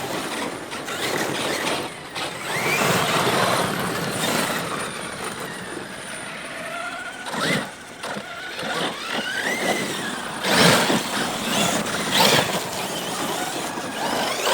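Electric RC bashing trucks running on dirt: brushless motors whining up and down in pitch with the throttle over the hiss of tyres and flung dirt, with three loud thumps in the second half.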